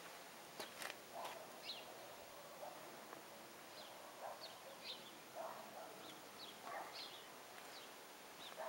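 Faint bird chirps, short and scattered, over quiet background noise, with a few soft clicks about a second in.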